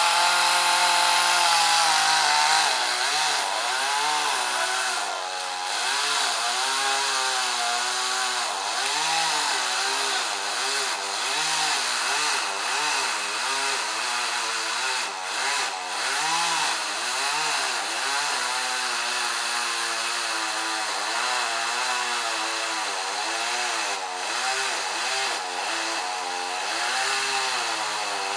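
Two-stroke chainsaw cutting into a tree trunk: held at full throttle for a couple of seconds, then its engine pitch rises and falls over and over, about once a second, as the chain bites into the wood and frees up again.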